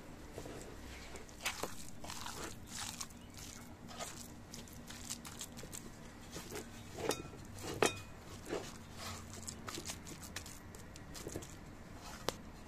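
Hands squeezing and turning chunks of raw meat with sliced onion and spices in a bowl: irregular squelches and clicks, the loudest about eight seconds in.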